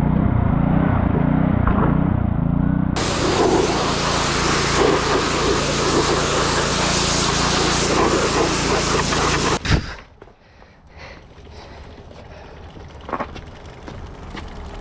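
Pressure washer running steadily, its small engine droning under the hiss of the high-pressure spray blasting grime off a quad. It cuts off suddenly about ten seconds in, leaving a few faint clicks.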